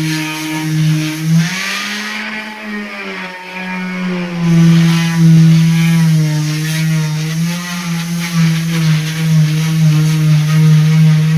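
A motor running loudly at a steady, fairly high pitch, dipping and rising slightly a few times.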